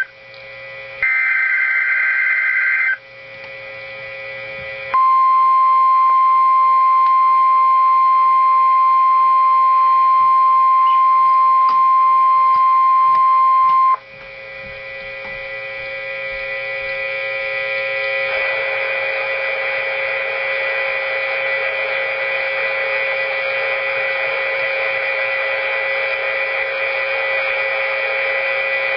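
Emergency Alert System broadcast on NOAA Weather Radio: a final burst of SAME digital header data, a short gap, then the steady alert tone for about nine seconds. The tone cuts off abruptly into radio static with a faint hum that grows louder, as the Required Weekly Test fails.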